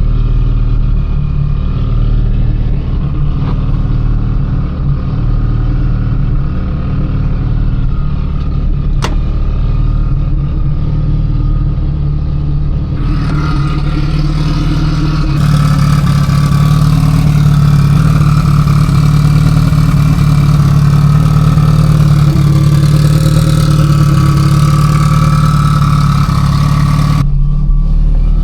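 Mitsubishi Lancer Evolution IX with its turbocharged 4G63 four-cylinder engine running on the road, a steady engine drone with road noise that gets louder and brighter about halfway through. No trim rattle stands out: the taillights, refitted with new grommets and screws, have stopped rattling.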